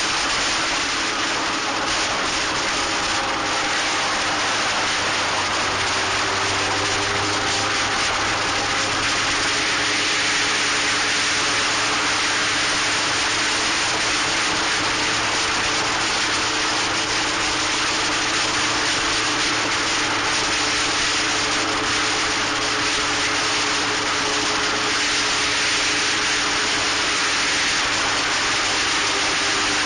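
Onboard sound of a Locost kit racing car at speed: a steady rush of wind over the action camera's microphone, with the engine's note running underneath at fairly constant revs.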